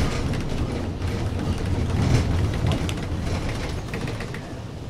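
Flexity tram running on its rails: a steady low rumble with scattered clicks and rattles, easing off somewhat over the last second or two.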